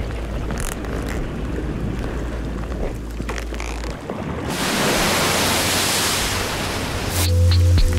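Water splashing and rushing as a car tyre rolls through standing water, with a low rumble underneath. About halfway through the rush of spray grows louder and brighter, and near the end a deep droning musical note comes in.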